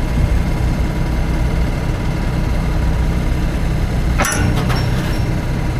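Heavy equipment engine running steadily while it moves a steel plow blade, with a short metallic clank and ring a little over four seconds in.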